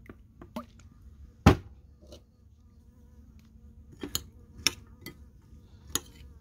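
A bee buzzing steadily near the food, a faint continuous hum. A sharp knock about a second and a half in, and a metal spoon clicking against the bowl a few times near the end as the pomegranate seeds are stirred.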